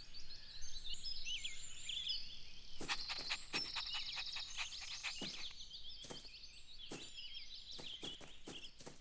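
Faint outdoor ambience of birds chirping and tweeting in many short, high calls, with a few brief clicks or taps scattered through the middle.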